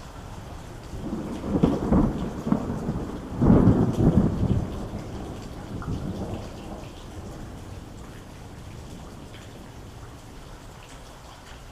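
Thunder rolling over steady rain: a low rumble builds about a second in, swells twice, then dies away, leaving the rain's even hiss.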